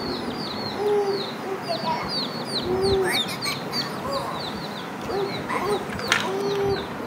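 Several baby chicks peeping constantly, with many short, high, falling peeps each second. A few lower, longer calls come in among them, and there is a sharp knock about six seconds in.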